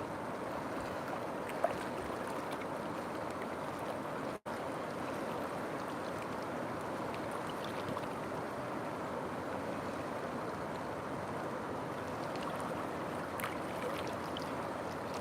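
River water flowing steadily, an even rushing with a few faint ticks in it. There is a momentary dropout about four seconds in.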